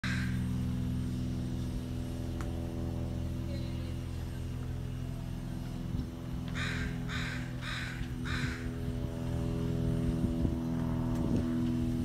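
A crow cawing four times in quick succession, about two caws a second, over a steady low mechanical hum of several held tones.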